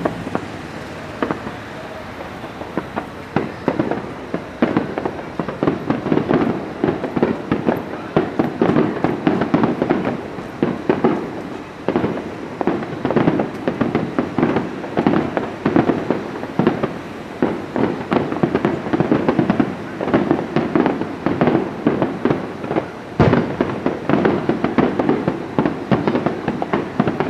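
Fireworks shells bursting in a rapid, continuous series of bangs and crackles, with one sharper, louder bang about 23 seconds in.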